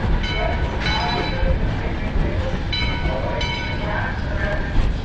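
Train at the platform: a steady low rumble, with short high ringing tones in pairs about every two and a half seconds.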